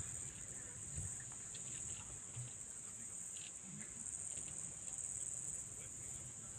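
Insects chirring in the grass: a steady, high continuous buzz, with faint low thumps underneath.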